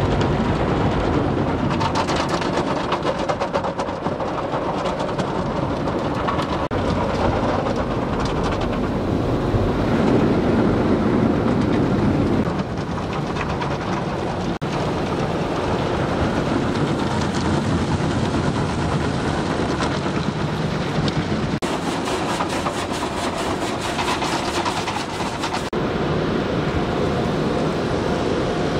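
Steady rumble and road noise of a moving vehicle.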